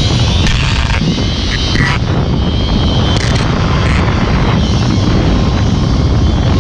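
Zipline trolley running fast along a steel cable: a steady whir and rush, mixed with heavy wind noise on the helmet-mounted camera's microphone, and a few light clicks from the trolley and harness hardware.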